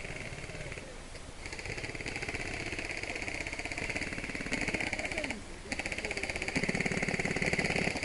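Airsoft electric guns firing full-auto in long, rapid bursts, with a short break about five and a half seconds in.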